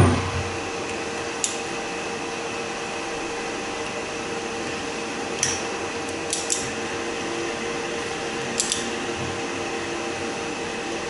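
Ratchet wrench working the housing bolts of a diesel high-pressure fuel pump: a thump right at the start, then a handful of short sharp metal clicks, some in pairs, over a steady workshop hum.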